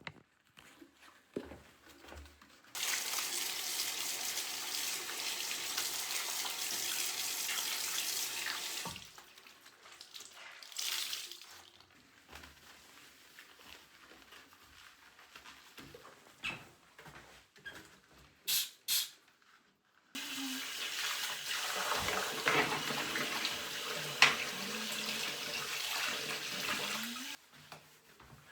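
Water running from a tap into a sink, turned on for several seconds and shut off abruptly, then turned on and off again later, with a few short knocks and clicks in between.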